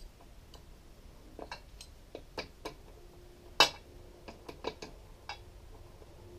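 Irregular metal clicks and clinks of a hand tool and fastener against an outboard motor's lower unit while a sacrificial zinc anode is being removed, the loudest a sharp clack about three and a half seconds in.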